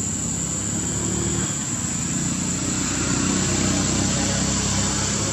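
A steady low engine drone, like a motor vehicle running close by, under a constant high-pitched whine, growing slightly louder about halfway through.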